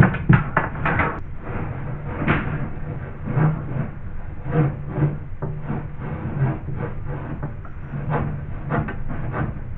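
Irregular scraping, rattling and knocking of a rod made of joined antenna sections being pushed and worked through a ceiling cavity between joists.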